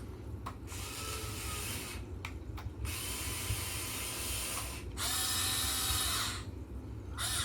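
Huina 1580 RC excavator's electric gear motors whirring in several separate bursts, each lasting one to two seconds, as its functions are driven.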